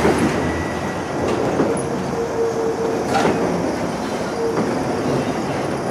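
R62A subway train rolling slowly around curved yard track, its wheels clicking over the rails. A steady wheel squeal sounds from about a second and a half in to about three and a half seconds, and briefly again near the end.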